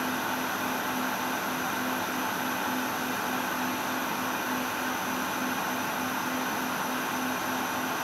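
Industrial machine running steadily: a constant mechanical drone with a hiss and a few fixed whining tones, over a low hum that pulses evenly a few times a second.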